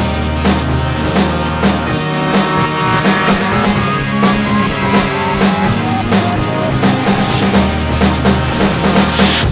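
Background music with a steady drum beat and bass line; a short run of falling notes plays in the middle.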